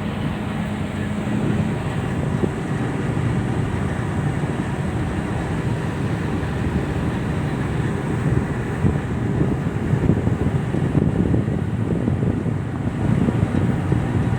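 Wind buffeting the microphone over the steady low rumble of a tugboat running at sea, with water rushing along the hull. A faint steady hum sounds in the first second or so.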